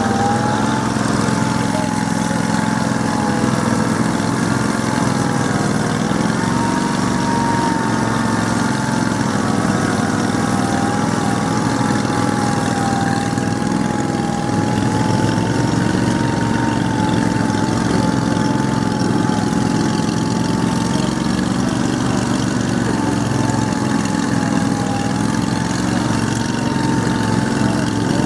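Engine of an Argo amphibious ATV running steadily, its pitch wavering slightly up and down with small changes in engine speed.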